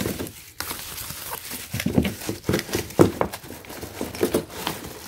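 Clear plastic packaging bags crinkling and rustling as a hand digs through a cardboard box of wrapped stainless steel pots and lids, with irregular soft knocks among the crackles.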